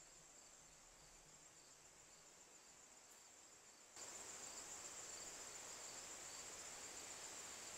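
Faint insect chorus in summer woods: a steady high trill with a fainter repeating chirp underneath. It becomes louder about halfway through.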